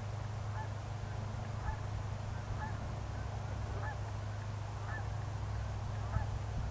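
Geese honking, a string of short scattered calls, over a steady low drone of a light aircraft's piston engine idling.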